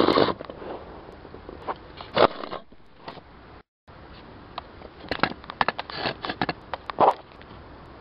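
A small carved wooden box being handled and its lid opened: scraping and knocking at the start, a sharp knock a little over two seconds in, then a quick run of clicks and taps from the lock and lid before it opens.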